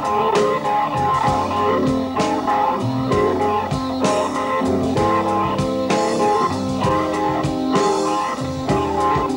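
A slow blues played live on Hammond B3 organ, electric guitar and drums: held organ chords and guitar lines over a slow, steady drum beat, with a moving low bass line.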